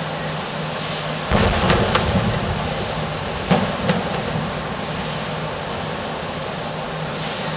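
Distant aerial fireworks shells bursting: a rumbling boom about a second in, then two sharp bangs close together in the middle, over a steady background hum.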